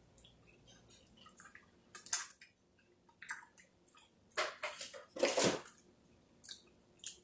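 Close-up mouth sounds of someone eating chicken wings: wet chewing and lip smacking with scattered short clicks. The loudest bursts come about two seconds in and again just past the middle.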